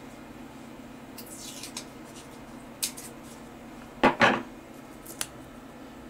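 Close handling noise of a small piece of paper masking tape at the end of a thread: a faint swish, a few light clicks, and a short, loud double crackle about four seconds in.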